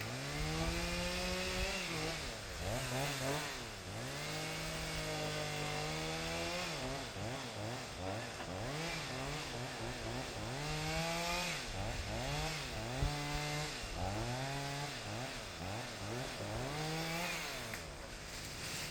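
Chainsaw engine revving up, holding high and dropping back toward idle, over and over.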